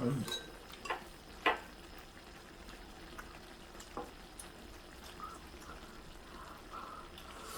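Squid and pork-belly stir-fry sizzling faintly on a hot iron griddle, with a few sharp clicks of utensils against it.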